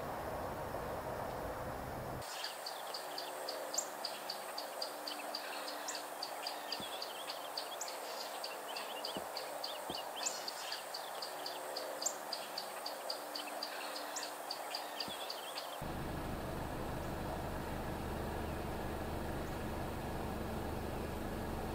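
Steady distant traffic noise, with a bird giving a fast, even series of high chips, about three or four a second, starting about two seconds in and stopping some seconds before the end.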